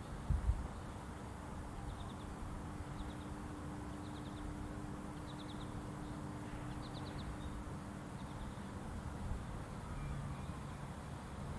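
FS&S STL-10A outdoor warning siren winding down near its stop, now only a faint steady low hum that fades out about eight seconds in. A bird calls over it in quick groups of three or four high chirps, about one group a second. A brief low thump comes about half a second in.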